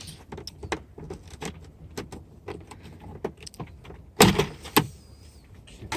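Hands working inside a Jeep Wrangler door, pulling up on the window channel: a run of small clicks, taps and rattles of plastic and metal parts, with two loud sharp knocks a little over half a second apart about four seconds in.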